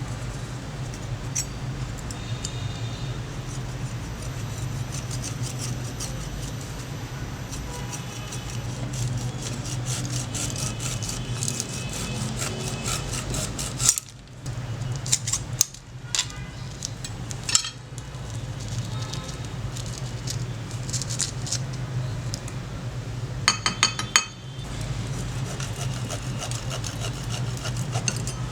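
Steel pruning-shear parts being worked on, with repeated metallic scraping and sharp clinks over a steady low hum.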